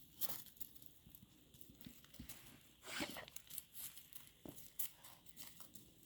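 A dog sniffing and moving about as it searches for a hidden scent: faint, irregular snuffs and scuffs, with one louder burst about three seconds in.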